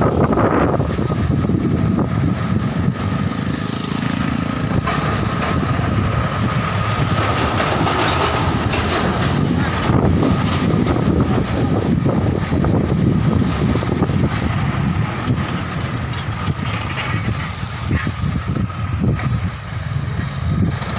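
Road traffic: heavy diesel truck engines running with a steady low rumble, and cars and motorcycles passing.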